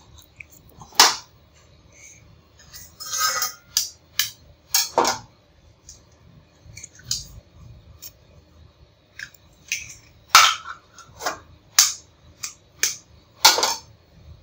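Eggs knocked against the rim of a metal bowl and cracked open: a series of sharp knocks and clinks, about a dozen, in two clusters, one in the first five seconds and a denser run from about ten seconds in.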